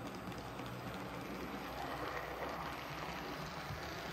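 Hornby OO-gauge model Bulleid Pacific locomotive running slowly along the track: a steady whirr from its small electric motor and wheels on the rails.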